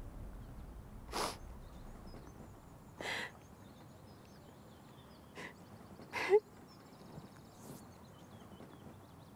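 A woman crying: a few short sniffles and shaky breaths a second or two apart, with a brief sob about six seconds in, the loudest sound.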